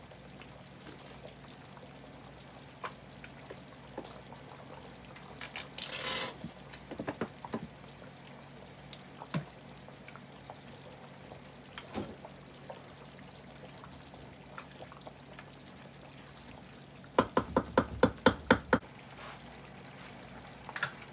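Wooden spoon clunking and scraping in metal cooking pans of chicken, with scattered single knocks, a short hissy scrape about six seconds in, and a quick run of about ten knocks, about six a second, a few seconds before the end.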